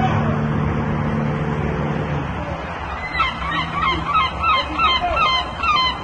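A small boat's outboard motor running steadily, dropping away about two seconds in. From about three seconds in come rapidly repeated gull-like calls, roughly two a second, each sharply bending in pitch.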